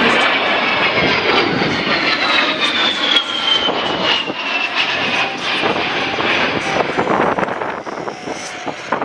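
Fairchild Republic A-10C Thunderbolt II's twin TF34 turbofan engines flying past. A high whine falls steadily in pitch over the first five seconds over a loud rushing jet noise, which eases off near the end.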